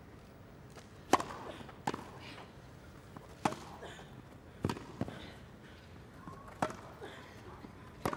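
Tennis serve and rally on a grass court: sharp hits of racket strings on the ball, the serve about a second in, then hits about every second or so, with softer ball bounces between.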